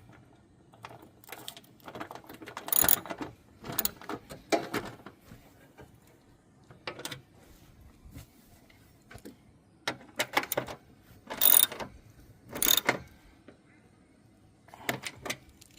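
Socket ratchet clicking in short bursts of rapid clicks with pauses between, as the starter's mounting bolt is tightened.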